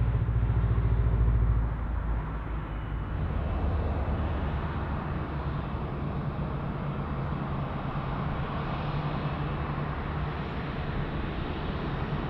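Jet airliner on landing approach: a deep engine rumble that drops away about two seconds in, leaving a steady rushing jet noise.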